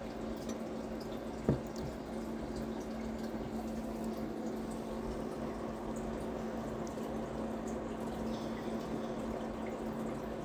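Steady low electrical-sounding hum over an even hiss of room noise, with a single short click about a second and a half in.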